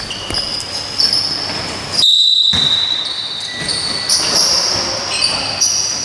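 Live basketball play on an indoor court: a ball bouncing and sneakers squeaking on the floor, the squeaks coming and going as short high-pitched tones throughout.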